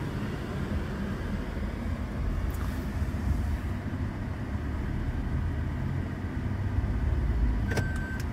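Steady low rumble of a Maruti Suzuki Fronx's 1.0-litre turbo petrol engine and tyres heard inside the cabin as the automatic car drives slowly. Near the end there is a click and a steady high electronic beep begins.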